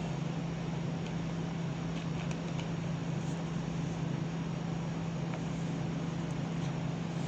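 Steady low machine hum over an even background hiss, with a few faint clicks between about one and three and a half seconds in.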